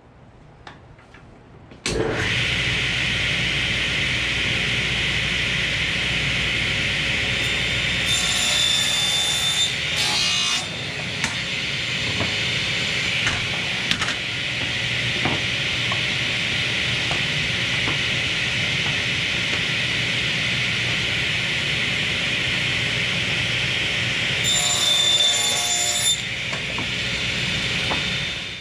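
Table saw running steadily, cutting boards to length. The sound comes in abruptly about two seconds in, and twice, about eight seconds in and again near the end, a higher whine rises over it as the blade goes through the wood.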